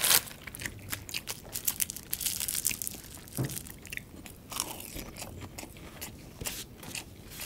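A person chewing a mouthful of crispy cup-noodle fried rice, with many quick, irregular crunches.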